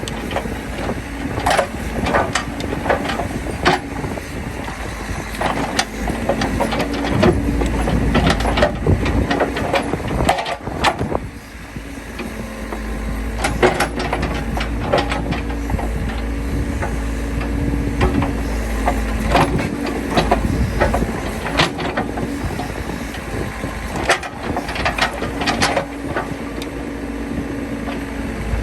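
Case 580C backhoe engine running steadily while the machine works, with many sharp knocks, clanks and cracks over it; the engine eases off for a moment about a third of the way in.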